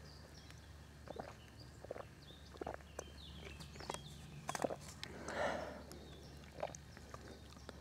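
A person drinking from a steel mug: faint sips and swallows, with small scattered clicks and rustles of handling and a soft breath out about five and a half seconds in.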